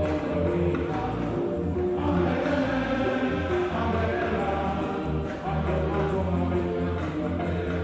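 Church choir singing a hymn with a steady low accompaniment.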